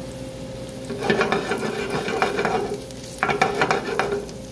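Sliced garlic and chili flakes sizzling in hot olive oil in a frying pan, crackling louder in two spells, about a second in and again about three seconds in.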